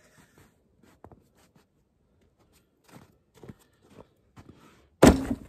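Footsteps crunching in snow, then about five seconds in a loud thud as a firewood log is dropped into a sled already loaded with logs.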